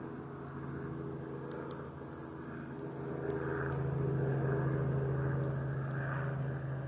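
A steady low engine drone, growing louder about three seconds in and staying up, with a few faint short high-pitched sounds over it.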